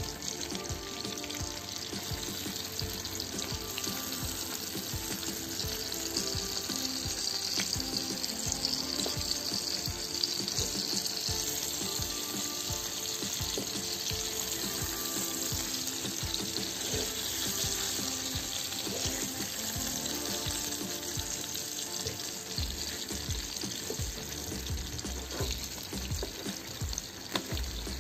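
Whole mullet shallow-frying in hot oil in a pan, a steady sizzle with the odd click of a steel spoon as the fish are turned. Background music plays underneath.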